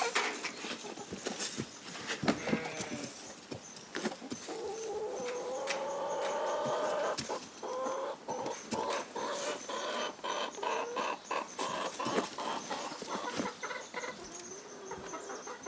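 Farm animals calling, including one long wavering call a third of the way in, among many short clicks and knocks.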